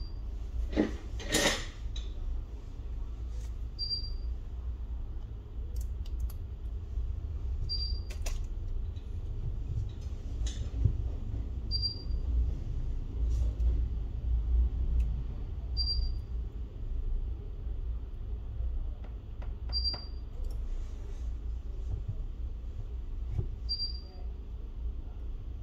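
Occasional faint clicks and taps of small tools and phone parts being handled during an iPhone 6s Plus repair, over a steady low rumble. A short high beep repeats about every four seconds.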